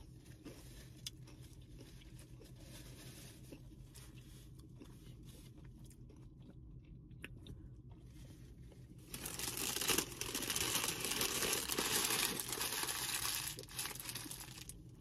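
Faint chewing, then from about nine seconds in a paper napkin crumpled and rubbed between the hands, crackling for about five seconds.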